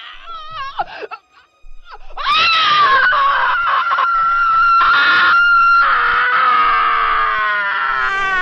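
A long, loud, high-pitched scream starting about two seconds in, held on one note and then sliding down in pitch near the end, after a few short wavering cries.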